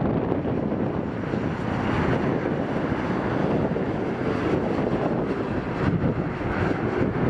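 Jet engine noise from a Boeing 787-9's GEnx-1B turbofans as the airliner passes low overhead on final approach with gear down: a steady, rough rumble, mixed with wind buffeting the microphone.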